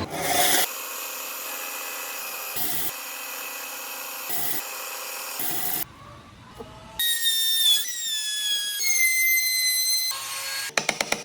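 Electric power tool cutting into wood: a steady motor hum for about the first half, a brief quieter stretch, then a high-pitched whine that shifts in pitch.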